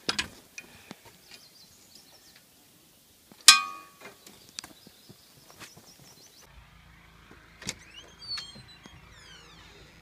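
A single sharp metallic clang with a short ring about three and a half seconds in, amid scattered light knocks and clatter around the sawmill. After a cut near the end come a steady low hum, a click and a few faint high squeaky chirps.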